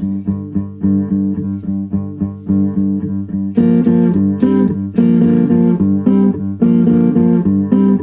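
Looped guitar playing a repeating picked figure, with a second, fuller guitar part layered on as an overdub about three and a half seconds in.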